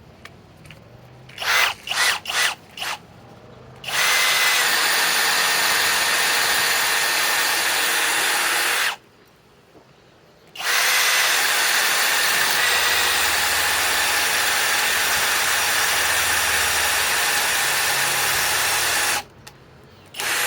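Master Force Boost cordless hammer drill driver's motor: four quick blips of the trigger, then a steady run of about five seconds. After a short stop it runs steadily again for about eight seconds, in its speed 1 setting.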